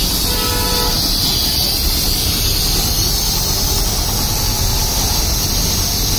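Double-piston air compressor driven by a 1 HP single-phase electric motor, running steadily: an even low hum with a strong hiss over it.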